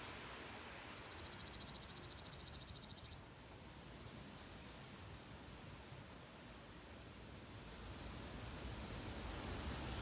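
Three rapid, evenly pulsed high trills from a small songbird, each lasting one to two seconds, the middle one the loudest. Under them a steady hiss of wind in the trees, growing a little stronger near the end.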